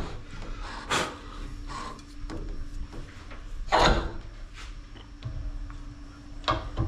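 Metal clunks and knocks from handling a valve-seat cutting machine's cutter head and pilot as it is moved from one valve seat to the next on the cylinder head. There are three sharper knocks, about a second in, near the middle and near the end, over a steady faint hum.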